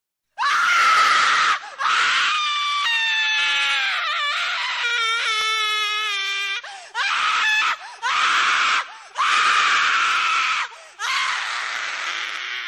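A person screaming loudly: several long, shrieking screams broken by short pauses, some held on a high, wavering pitch.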